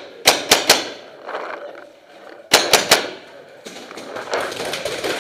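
Paintball marker shots, sharp pops in two quick groups of three: one just after the start and one about two and a half seconds in. More shots build near the end.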